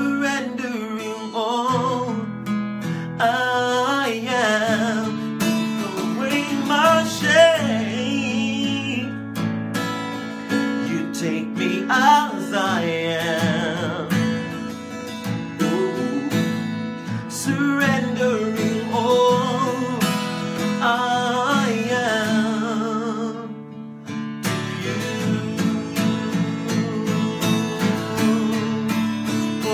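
A man singing a worship song while strumming an acoustic guitar, his voice wavering over steady chords. The singing drops out briefly about three-quarters of the way through while the guitar carries on.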